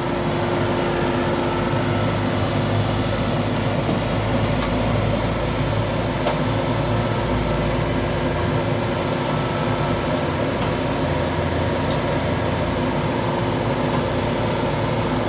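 A heavy machine engine running steadily at constant speed, a low hum with a steady mid-pitched tone over mechanical noise.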